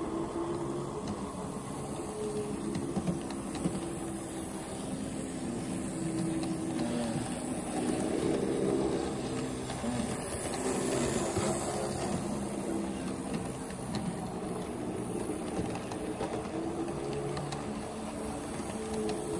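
HO scale model freight train of double-stack container cars rolling along the track: a steady motor hum with the running noise of the wheels on the rails. It grows a little louder for a few seconds in the middle.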